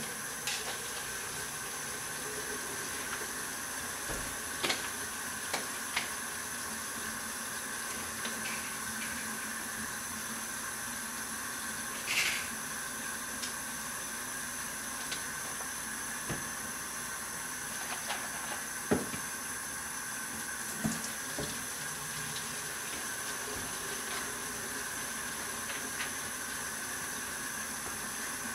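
Tap water running from a utility-sink faucet into plastic 2-liter bottles, a steady hiss, with a few short knocks as the bottles are handled.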